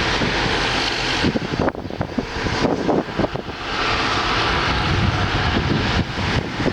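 Wind rushing over the microphone and road noise from a moving car, loud and gusty, with short dips a few times.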